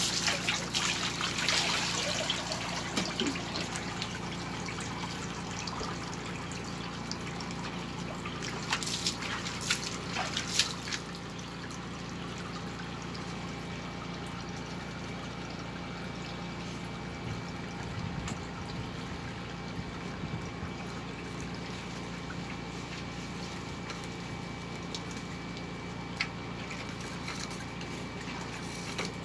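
Water poured from a metal bowl over a dog standing in a plastic kiddie pool, splashing and trickling down into the pool water in uneven bursts over the first eleven seconds or so. After that it settles to a quieter, steady background.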